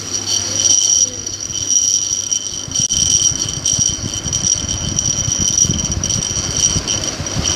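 USHA ceiling fan running at high speed, pushing air in a pulsing low whoosh with a helicopter-like chop that grows stronger toward the end. The fan wobbles excessively at high speed, and the owner holds that the noise comes from the fan itself, not the regulator. A steady high-pitched whine at two pitches sounds throughout.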